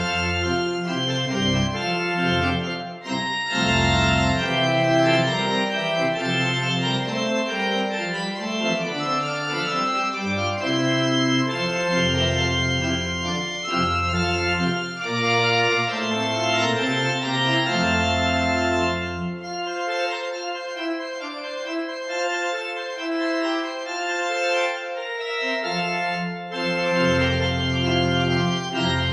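Background music led by an organ, playing sustained chords over a bass line that drops out for several seconds in the second half.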